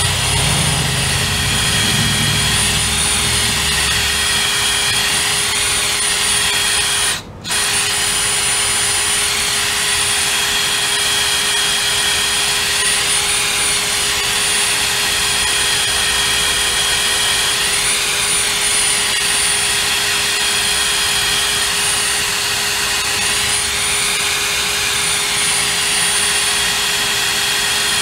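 Cordless brushless drill running steadily with its bit turning inside a pintle hitch's shaft sleeve, its whine wavering a little in pitch. It stops for a moment about seven seconds in, then runs on.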